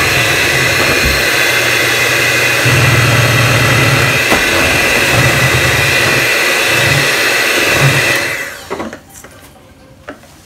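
Proctor Silex electric hand mixer running steadily with a high whine, its beaters churning waffle batter in a stainless steel bowl. It is switched off about eight seconds in, followed by a few light clicks.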